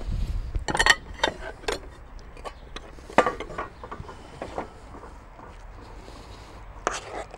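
Clinks and knocks of kitchenware: a plate set on a wooden board and a metal spoon scraping and knocking in a stainless steel pot while scooping mashed potato. There is a quick cluster of knocks in the first two seconds, a sharp one about three seconds in and another near the end.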